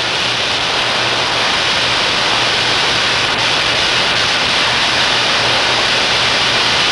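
Live steam escaping from a leaking high-pressure steam main: a loud, steady hiss that does not let up.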